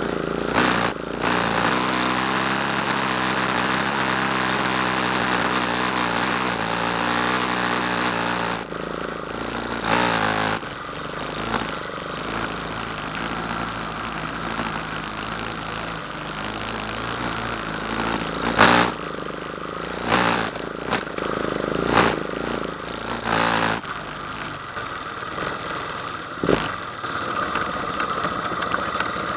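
ATV engine running, its note steady for about eight seconds, then dropping lower and quieter. Several sharp knocks break in over the rest of the stretch, the loudest about two-thirds of the way through.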